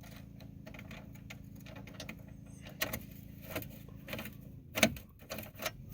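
Hand tools and screws clicking and clinking while screws are backed out of a truck's dash panel: scattered small metallic clicks and knocks, a few sharper ones in the second half, over a low steady hum.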